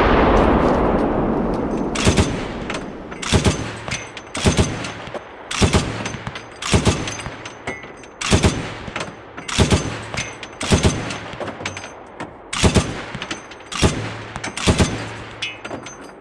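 Vehicle-mounted automatic weapon fired in short bursts of two or three shots, about one burst a second. Each burst echoes. A loud rolling echo from a bigger blast fades away over the first two seconds.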